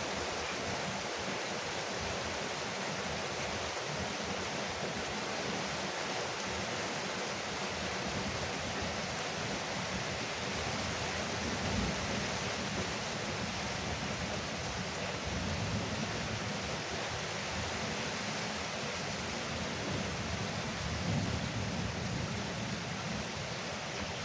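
Rain falling steadily on a porch roof, an even unbroken hiss, with a low rumble swelling up a few times underneath.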